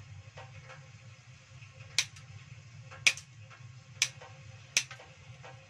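Kitchen scissors snipping the claws off boiled chicken feet: four sharp snips about a second apart, with fainter clicks of the blades between, over a low steady hum.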